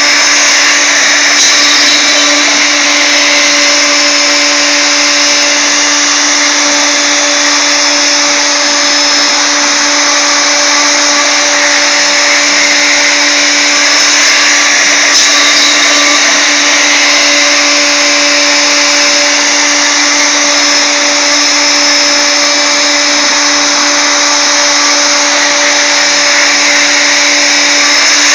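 Wood router motor serving as a CNC router's spindle, running at constant speed as a small ball-nose bit carves the finishing pass of a wooden corbel. A steady whine with an even hum beneath it, unchanging throughout.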